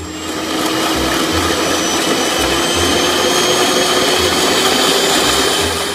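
Toy electric hand mixer's small motor running with a steady whir.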